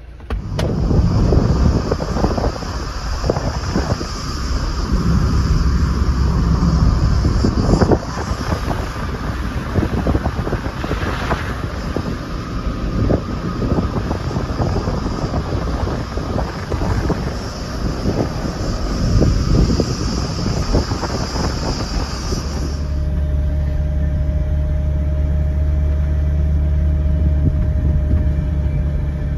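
Car driving with wind buffeting the microphone and road noise, under a steady high-pitched hiss. About 23 seconds in it cuts to the steadier low drone of the engine and tyres heard inside the cabin, with a faint steady whine.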